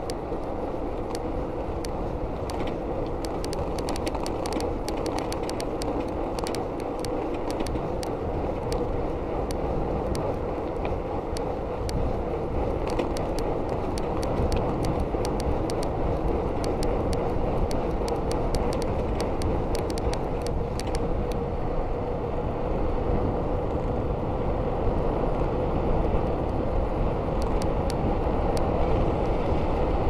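Ride noise from a Giant Iguana mountain bike on a paved road: a steady rolling hum from the tyres and rushing air, with frequent small clicks and rattles from the bike. It grows slightly louder as the speed picks up.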